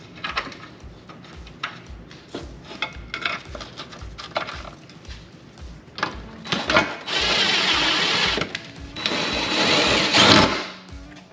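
Cordless DeWalt power driver running a bolt of an exhaust bracket in, in two long bursts in the second half. Before it come scattered clicks and knocks as the bracket and bolts are handled.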